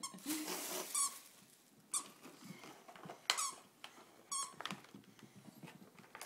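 A dog's squeaky toy squeaking in short, separate squeezes, about five times at irregular intervals, as the dogs bite and play with it.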